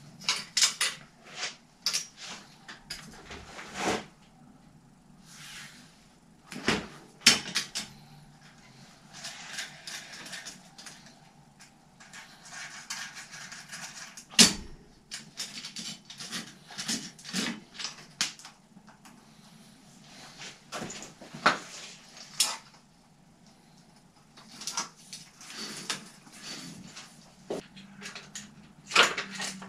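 Irregular clicks, knocks and rustling of a bicycle wheel being handled and fitted into the frame, with a sharp knock about halfway through.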